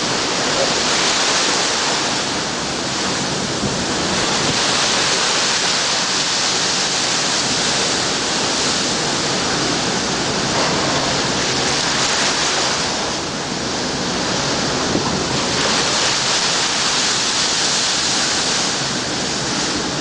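Seawater rushing and sloshing across a ship's steel deck as waves come over the side in heavy seas: a loud, steady hiss of water that eases briefly twice.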